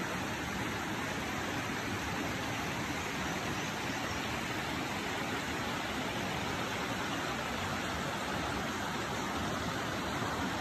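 Steady rush of a rainforest creek, water running and spilling over rock into a pool.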